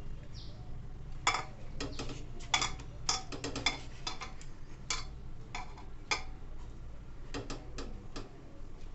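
Irregular light clicks and clinks as hands pack banana-leaf-wrapped parcels into an aluminium pressure cooker, fingers and bangles knocking against the metal pot, some with a brief ring. A steady low hum lies underneath.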